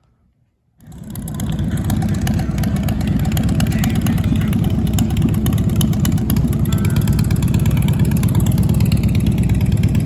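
Loud, steady vehicle noise, a low engine and road rumble, cutting in suddenly about a second in.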